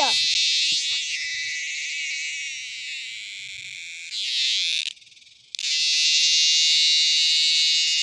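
A dog-day cicada, just caught and held close, buzzing loudly with a harsh, steady high buzz. It fades a little, swells about four seconds in, stops abruptly for about half a second, then starts again at full strength.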